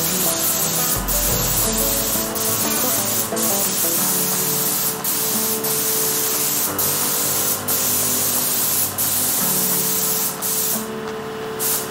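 Compressed-air spray gun spraying primer: a loud steady hiss broken by short gaps every second or so, which drops away shortly before the end. Background music plays underneath.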